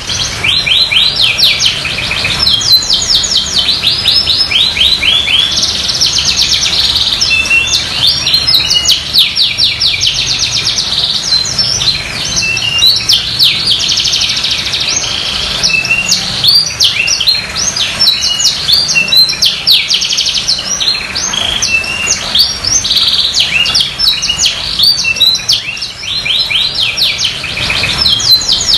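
Domestic canary in full song: a long, unbroken stream of fast high-pitched trills and rolls, each a rapid run of repeated notes, changing from one trill to the next with only brief breaks.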